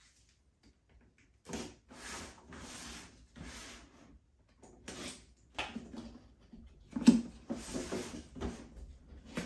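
Cardboard action-figure packaging being handled: an outer cardboard box slid off the windowed inner box in three or four scraping strokes, then rustles and knocks as the boxed figure is handled, with one loud knock about seven seconds in.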